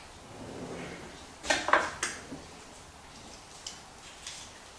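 Kitchen utensil clatter during food prep: two sharp knocks about a second and a half in, then a few faint clicks.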